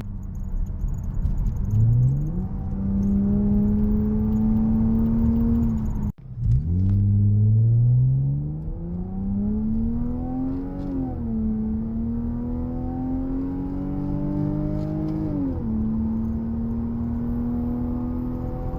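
Lexus GS300's straight-six engine, a non-VVTi unit swapped in from a 1996 GS300, pulling the car away under acceleration. Its note rises steadily and falls back at two upshifts of the automatic gearbox, then settles into a steady cruise. The sound breaks off abruptly for a moment about six seconds in.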